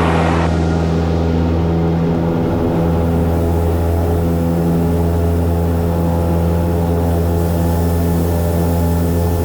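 Cessna 172M's four-cylinder Lycoming O-320 engine and propeller running steadily at constant speed, with an even, unchanging drone.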